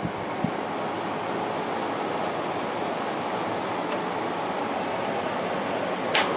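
Fedders 8000 BTU window air conditioner running on low fan only, its LG fan motor coming up to speed and then blowing a steady rush of air, with the compressor not yet on. A single sharp click near the end.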